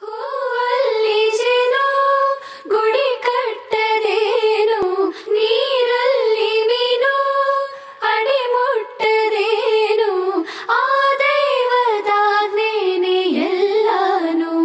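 A high solo voice singing a flowing, ornamented melody of a Kannada devotional song, with many gliding turns of pitch and short breaths between phrases; near the end a long held note slides downward.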